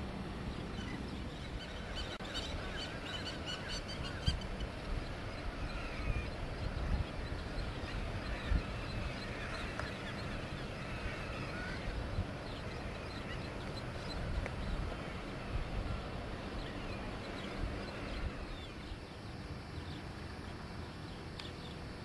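Birds calling, with a burst of repeated high calls a couple of seconds in and a busier patch of chatter in the middle, over a steady low rumble of wind and engine noise.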